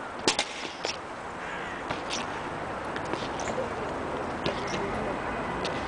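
Boots of a ceremonial guard striking wet stone paving in a slow goose-step march: single sharp strikes about a second apart, the loudest a third of a second in, over a steady outdoor hiss.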